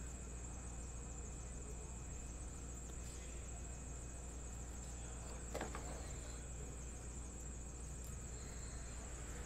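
Steady high-pitched hiss with a low hum underneath: background noise of the recording setup. A single brief click comes about five and a half seconds in as cards are handled.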